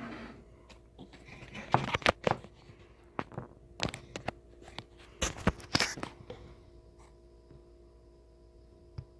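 Irregular clicks, knocks and rustles of hands handling small equipment, the loudest around two seconds in and again around five to six seconds in, then settling to a faint steady hum with one small click near the end.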